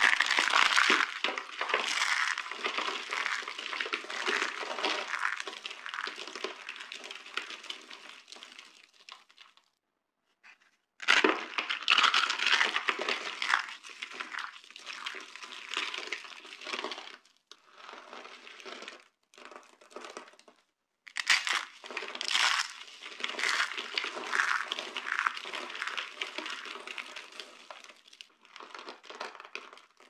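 Dry soap being crushed and crumbled by hand: a thin soap box packed with rolled soap curls crackling and crunching into flakes. It comes in three long spells of dense crackling, with a short pause about a third of the way through and only scattered crackles just past the middle.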